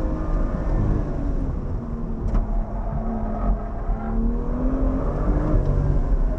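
BMW M2's turbocharged inline-six heard from inside the cabin, pulling hard on an autocross run. The engine pitch sags as the car slows for a corner, then climbs again as it accelerates out.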